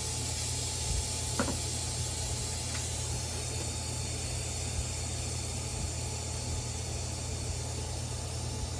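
Air hissing steadily out of an electric skateboard tire through a deflating tool screwed onto its valve stem.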